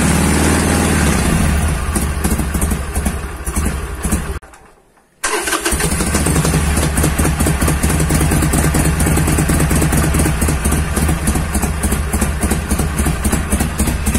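Harley-Davidson Sportster 883's air-cooled V-twin idling through its stock mufflers, which have been cut open. The engine fades and stops about four seconds in, then is running again less than a second later and idles on.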